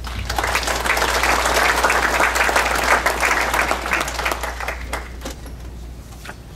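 Audience applauding. The clapping swells at once, holds, and then dies away after about five seconds.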